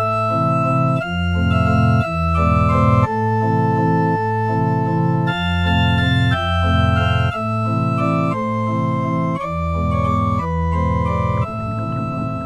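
Background music from an organ-like keyboard: held chords over a bass line that changes note about once a second. Near the end the chords give way to a quieter, rougher sound.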